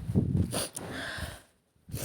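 A woman sniffling hard through a blocked nose: a rough, snort-like sniff followed by a longer breathy one that fades out, a sign of her dust allergy.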